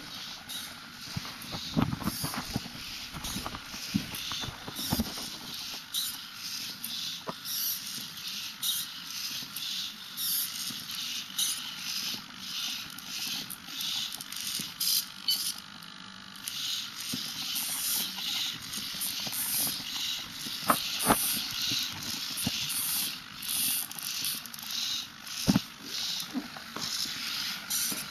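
The hobby servo motors of a six-legged walking robot whirring in short pulses about twice a second as its legs step, with occasional sharp clicks and taps from the legs on a wooden floor. The whirring eases briefly about halfway through.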